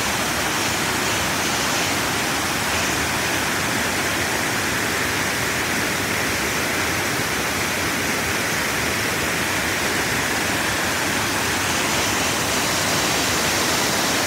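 A small woodland stream in flood after a storm, muddy water rushing over rock ledges in small waterfalls and cascades, a steady continuous rush of water.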